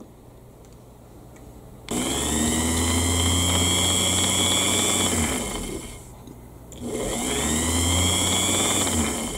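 Rotary sewing machine's electric motor spinning the hand wheel through its freshly resurfaced friction wheel, run twice: each time it whirrs up in pitch, runs steadily for a few seconds, then winds down. The friction wheel's flat spot from resting against the hand wheel has been sanded out.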